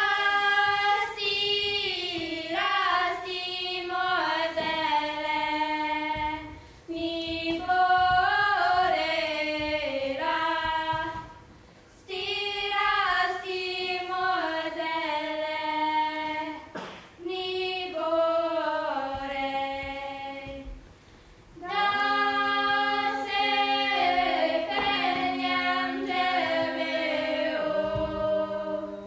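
A small group of women singing unaccompanied, in several long held phrases with short breaks between them.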